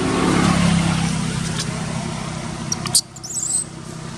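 A motor vehicle's engine passes by, its hum swelling about half a second in and then slowly fading. Near the end comes a sharp click, then a short high chirp.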